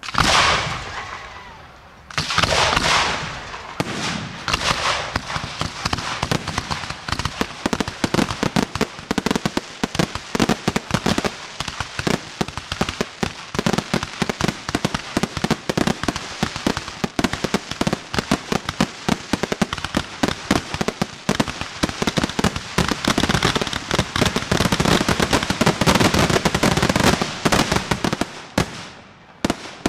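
Aerial fireworks display: a sudden loud burst opens, another about two seconds in, then a dense barrage of bangs in quick succession, many a second, thinning out and stopping near the end.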